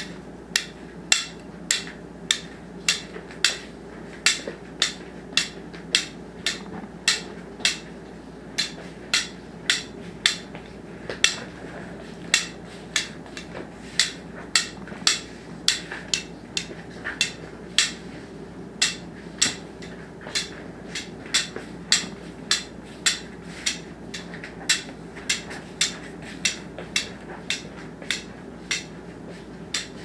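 Sharp clicks or taps repeating about twice a second at a slightly uneven pace, over a steady low hum.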